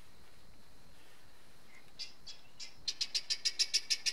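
Helmeted guineafowl calling: two short calls about two seconds in, then a fast, even rasping chatter of about six calls a second.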